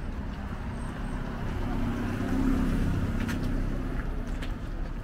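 A car passing on the street, its tyre and engine noise swelling to a peak about halfway through and then fading.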